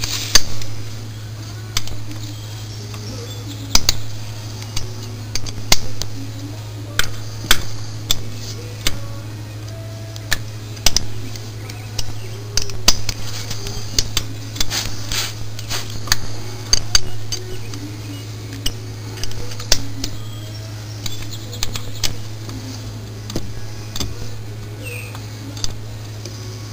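Hand wrench clinking against the bolts and cast case of a transmission as it is fitted and worked, sharp irregular metal clinks about once a second. A steady low hum runs underneath.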